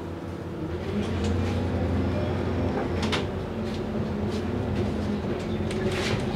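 Bus engine pulling away from a stop: the idle gives way about a second in to a louder note that rises in pitch as the bus accelerates. Interior clicks and rattles come over it, with a sharp one about three seconds in.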